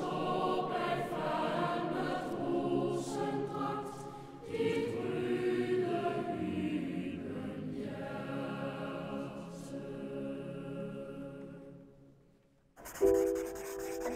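A choir singing sustained chords, fading out about twelve seconds in. About a second later a ringing sound effect starts suddenly, with a few steady tones held under it.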